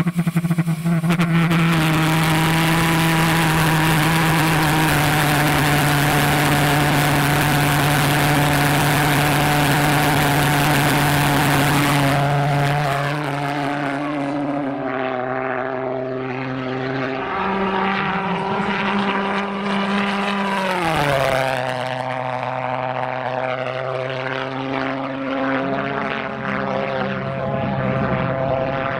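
Pulse jet engine of a radio-controlled delta-wing model running flat out with a loud, steady buzz and a harsh hiss on the launch ramp. About twelve seconds in the hiss falls away as the model launches, and the buzz carries on from the air, its pitch dropping twice as the model passes. The engine has no throttle, so it runs at full power throughout.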